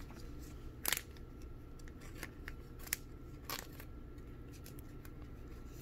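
Trading card and clear plastic sleeve being handled: a few soft, scattered clicks and rustles.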